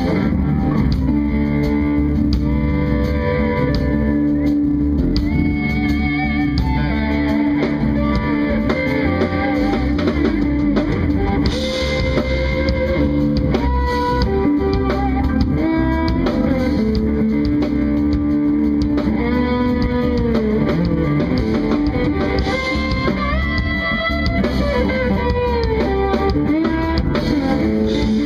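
Instrumental jazz-fusion band playing: an electric guitar carries a melody of sliding, wavering notes over bass and a drum kit.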